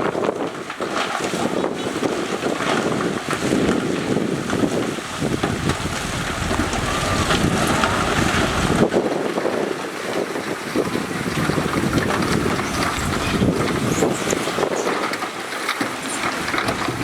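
Heavy diesel earthmoving machinery running and working, a dense mechanical rumble with wind buffeting the microphone.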